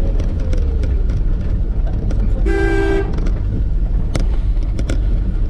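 UAZ Bukhanka van driving, its engine and road rumble loud inside the cab, with one short horn toot about two and a half seconds in lasting half a second. A few knocks and rattles from the body near the end.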